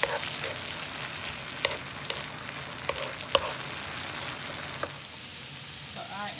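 Cauliflower rice sizzling in oil on a griddle while a wooden spatula stirs it, with scattered short scrapes and knocks of the spatula against the griddle surface.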